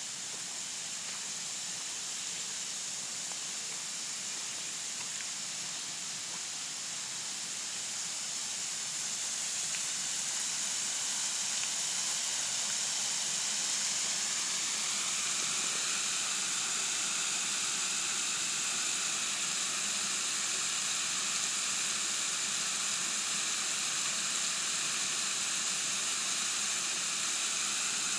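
Steady rush of falling water, a hiss with no distinct events, growing louder over the first ten seconds or so and then holding level.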